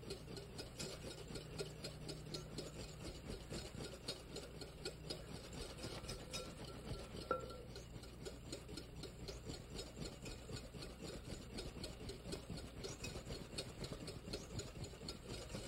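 A wire balloon whisk beating egg yolks and oil into mayonnaise in a bowl: a faint, steady, rapid scraping and ticking of the wires against the bowl. The emulsion is just beginning to thicken.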